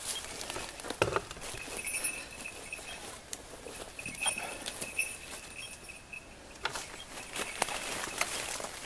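Footsteps rustling and crunching through ivy and bramble undergrowth, with a sharp crack about a second in. A small bell jingles on and off throughout.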